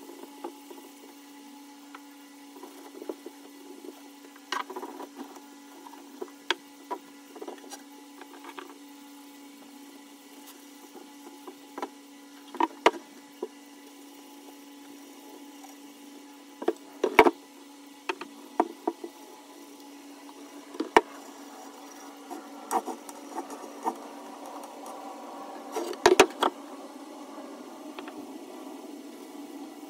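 Wood being handled on a workbench: scattered knocks and taps over a steady low hum.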